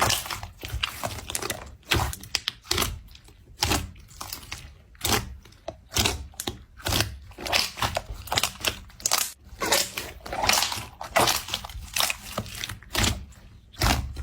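Repeated crunching and crackling of something brittle being crushed or squeezed, in irregular bursts about once or twice a second.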